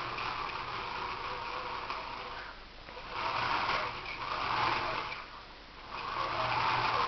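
Drive units of a remote-controlled model with modified Voith Schneider drives running, swelling louder twice: from about three seconds in, and again near the end.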